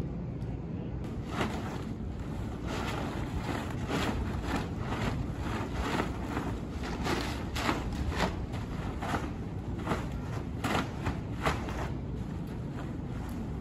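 A plastic tarp crackling and flapping in quick irregular bursts as it is shaken around a horse's head, over a steady low rumble. The crackling stops shortly before the end.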